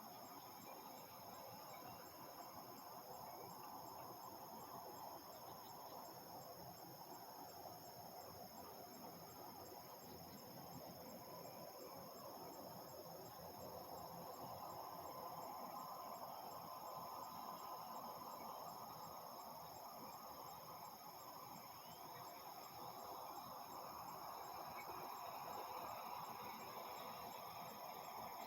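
Faint dusk ambience of insects such as crickets trilling steadily at several high pitches, one with a fine pulsing, over a low distant rumble that swells slightly midway and again near the end.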